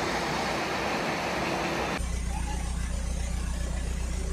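A steady rushing hiss for about two seconds, then it cuts to a narrowboat's engine idling with an even low hum.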